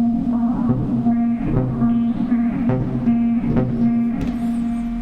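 Vermona PERfourMER MKII analog synthesizer playing a sequenced pattern: a sustained low note held under a repeating run of short plucked notes, about two or three a second, dying away near the end.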